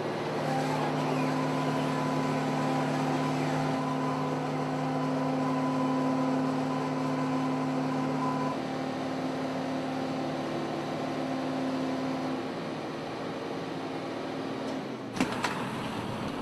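Steady mechanical hum of airport cargo-loading machinery, holding a few level tones that thin out about halfway through. Near the end there are two sharp metallic clanks.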